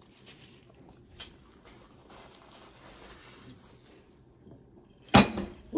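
Soft rustling of a paper napkin as hands are wiped, with a faint click about a second in, then a loud sharp knock near the end.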